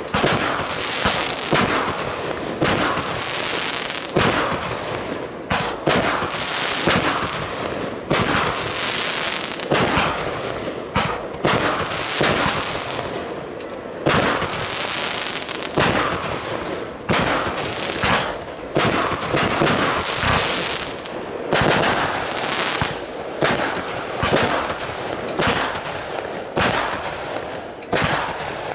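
Aerial fireworks firing in quick succession: a sharp bang about every second, with hissing and crackling between the shots.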